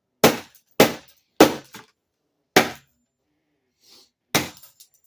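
Five hard, sharp smashing blows at an uneven pace, each followed by a brief crackle of breaking pieces, as the dismantled parts of an Acer Chromebook are smashed.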